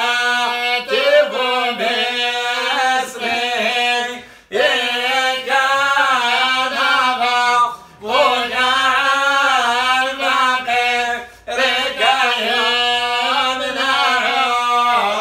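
A man chanting alone in a melodic Arabic religious style, holding long ornamented notes, with short breaks for breath at about four and a half, eight and eleven and a half seconds.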